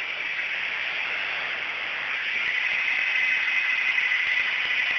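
Cordless drill running steadily while a nail is driven with it, a whine settling in a little over two seconds in as it gets louder.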